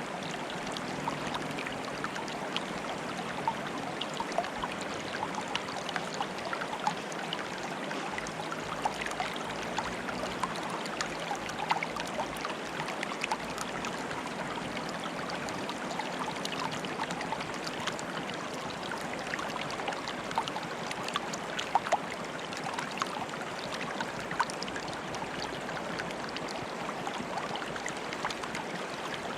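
Water bubbling and trickling: a steady rush dotted with many small pops and splashes.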